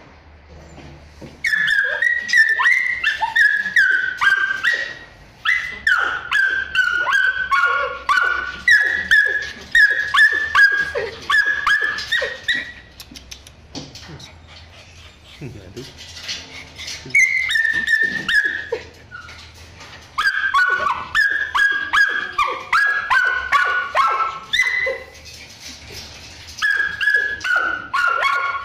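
Dogs in shelter kennels whining and yelping: long runs of short, high cries, most of them falling in pitch, with a quieter pause about halfway through.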